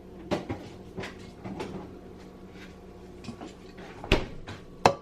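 Rummaging in a refrigerator: a series of knocks and clatters as containers and a pot of leftover greens are moved about, with a louder thump about four seconds in and another near the end.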